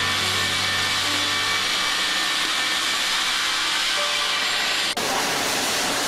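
Sawmill machinery cutting wood: a steady, hissing rush of sawing noise that breaks off abruptly about five seconds in and resumes at once.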